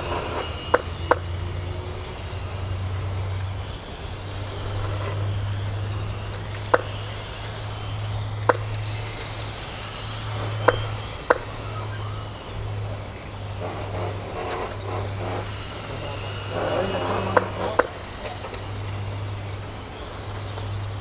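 Electric 1/10 mini RC touring cars (Tamiya M-chassis) racing on an asphalt track: a thin high motor whine over a steady low hum, with about eight short sharp ticks spread through.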